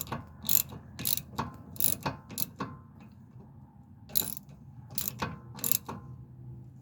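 Ratchet on a socket clicking as a brake caliper pin bolt is tightened, in short runs of about two clicks a second with a pause around the middle.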